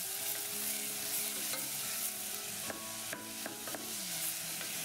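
Diced onion sizzling in hot vegetable oil in a stainless steel saucepan, stirred with a wooden spatula. A steady, gentle frying hiss.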